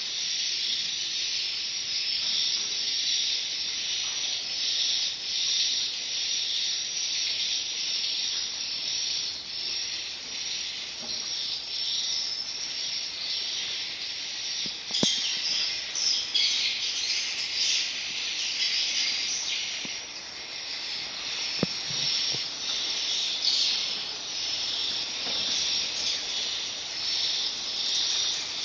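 Recorded swiftlet calls played back by a swiftlet-house sound player: a continuous, dense, high-pitched twittering and chirring that changes texture about halfway through.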